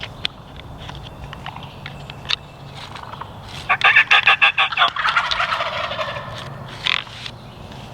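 Wild turkey gobbler gobbling: a rapid rattling call about four seconds in that trails off over the next second or so, with a short sharp call near the end.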